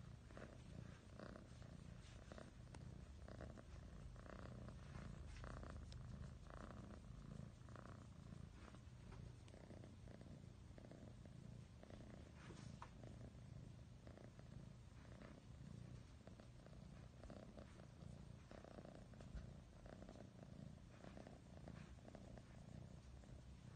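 A domestic cat purring softly and steadily while being stroked, the purr pulsing with each in and out breath: a sign of a relaxed, content cat.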